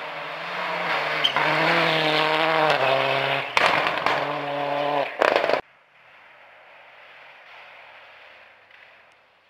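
Rally car engine at full throttle on a gravel stage, its pitch stepping through gear changes, with sharp bangs about three and a half and five seconds in. About five and a half seconds in it cuts off abruptly to a faint, distant engine sound.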